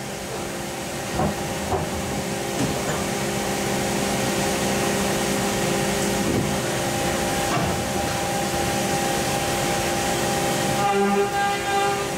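2000 OKK HM4 horizontal machining center cutting under flood coolant: a steady hiss of coolant spray over the machine's steady whine, with a few faint ticks in the first few seconds.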